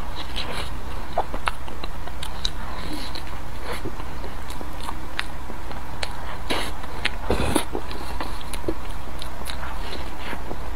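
Close-miked wet eating sounds: sticky clicks and smacks of a mouth biting and chewing a soft bun coated in melted chocolate, over a steady low hum.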